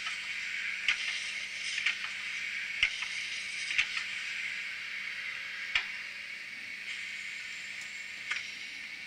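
Arnold BR41 model steam locomotives running double-headed, their sound giving a steady steam hiss, with sharp clicks every second or so.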